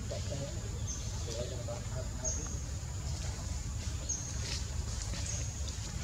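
Outdoor ambience: a steady low rumble, with short high chirps about every second or two and a brief faint murmur about a second in.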